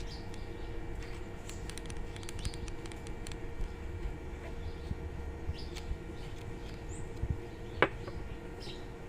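Low steady rumble and hum of room noise, with light scattered ticks and one sharp click about eight seconds in.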